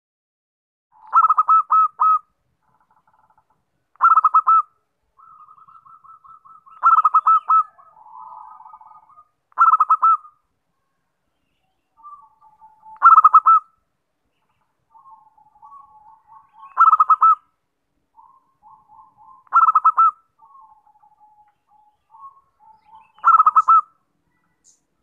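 Zebra dove (perkutut) cooing: eight loud, short phrases of rapid staccato coos, about every three to four seconds, with softer, quicker runs of notes in between. This is the perkutut's song used as a lure call.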